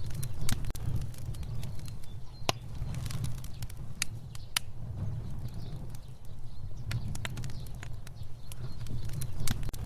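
Fire burning: a steady low rumble of flames with frequent irregular sharp crackles and pops.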